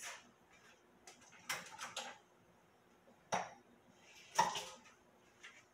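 Kitchen utensils and dishes being handled: a handful of separate clinks and knocks with quiet in between.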